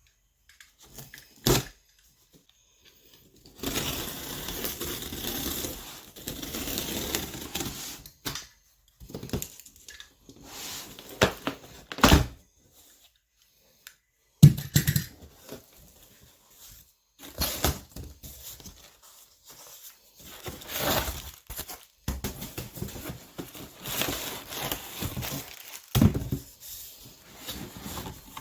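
A cardboard box and its packing being opened by hand: irregular spells of tearing and crinkling, broken by sharp knocks and thuds as the box and its contents are handled.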